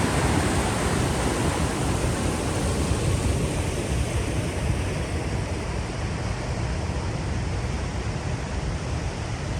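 Waterfall rushing, a steady dense roar of falling water that eases slightly in loudness over the seconds.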